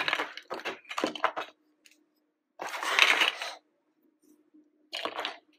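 Plastic LEGO DUPLO bricks clicking and clattering against each other as hands sort through a pile of them, with a longer rattle of shifting bricks about three seconds in and a short one near the end.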